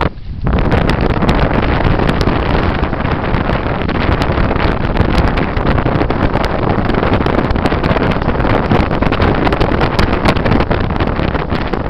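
Strong wind buffeting the microphone over water rushing and splashing past the hull of a small sailing catamaran moving fast, a steady loud rush with frequent crackles of spray.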